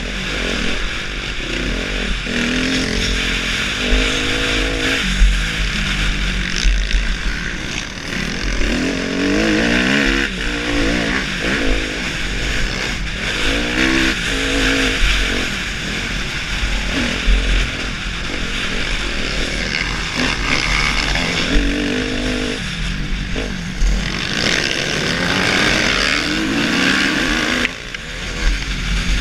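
Suzuki motocross bike's engine revving hard and easing off again and again as it is ridden around a dirt track, the pitch sweeping up and dropping back several times. Heavy wind rush on a helmet-mounted microphone runs under it.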